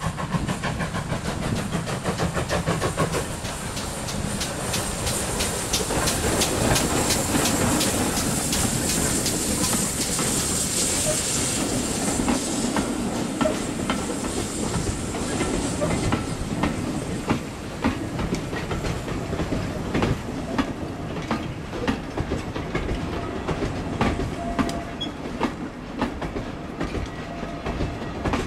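GWR 0-6-0 pannier tank steam locomotive 5786 working a passenger train past, its exhaust beating in an even, quick rhythm for the first twelve seconds or so. Then the coaches roll by with the wheels clicking unevenly over the rail joints.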